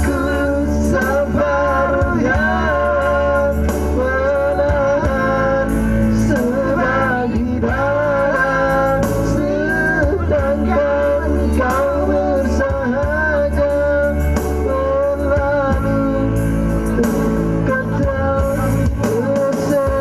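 A man singing a song with guitar accompaniment.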